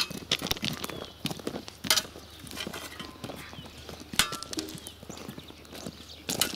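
Footsteps crunching on a crushed-stone gravel road at a walking pace, with a sharper crunch about every two seconds.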